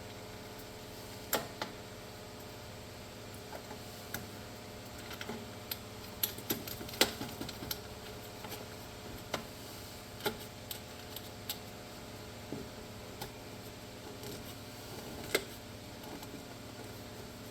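Scattered light clicks and taps of small parts and hand tools being handled, irregular and a few seconds apart, over a steady low hum.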